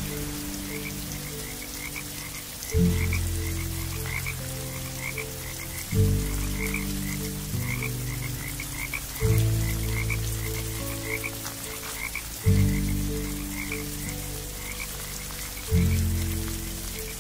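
Frogs croaking in short repeated calls, about three a second, over a soft patter of rain. Deep, slow music chords change about every three seconds and are the loudest part.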